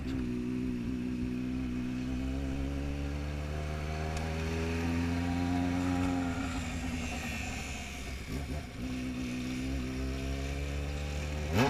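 Motorcycle engine heard from the rider's seat while riding: it holds steady revs, the revs fall away about six seconds in and then climb again, and near the end the pitch shoots up and drops sharply.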